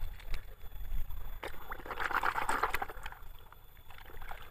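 Sand rustling and trickling as hands dig through a toy dump truck's load of sand, with a few light clicks, strongest about two seconds in.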